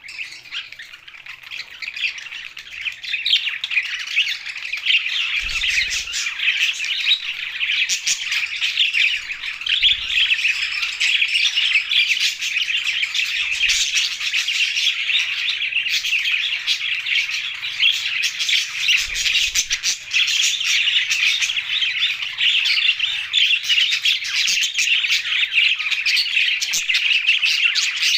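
A flock of budgerigars chattering nonstop with quick overlapping chirps and squawks, a little quieter for the first second or two.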